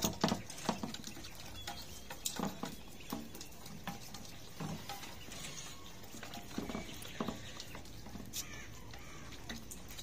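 Hens and a duck pecking rice off a board, a scatter of light taps and clicks, with a few brief soft calls from the birds now and then.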